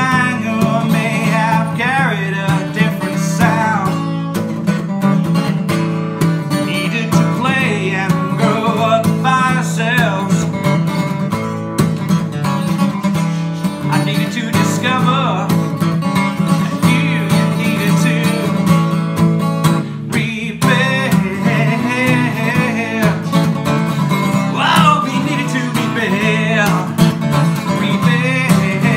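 Maton steel-string acoustic guitar strummed steadily, with a rack-held harmonica playing a wavering melody over the chords.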